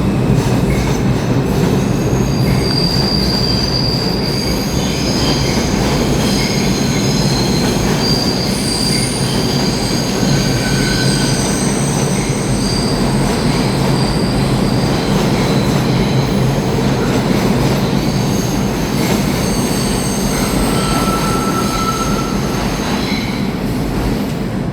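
R142 subway train running through the station with a steady loud rumble. Its steel wheels squeal on the rails in high, shifting tones that come and go throughout.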